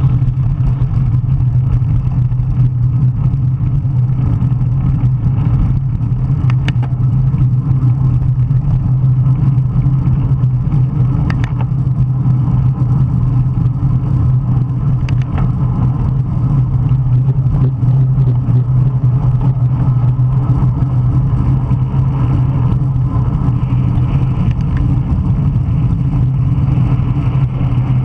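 Strong wind buffeting the microphone of a camera carried by a cyclist racing in 40+ mph winds: a loud, steady low rumble. A few faint clicks sound through it.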